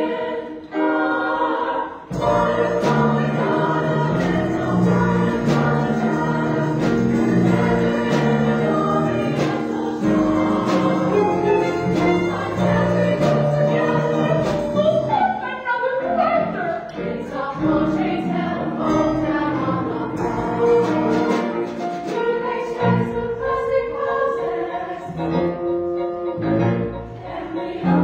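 Musical-theatre song: a chorus of voices singing together over instrumental accompaniment.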